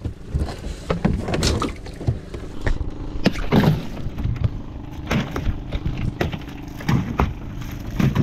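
Irregular knocks and thumps of fishing gear handled on a wooden outrigger boat as a net full of anchovies is hauled aboard. A steady low hum joins about three seconds in.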